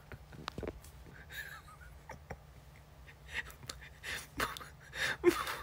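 A man laughing quietly in breathy, wheezing gasps, the laughs getting a little louder near the end, over a low steady hum.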